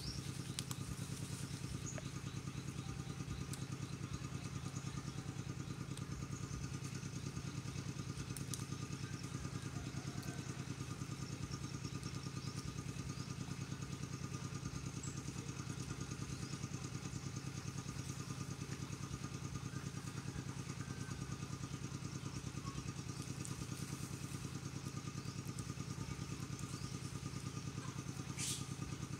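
An engine idling steadily: a low, even hum that does not change, with a few faint clicks.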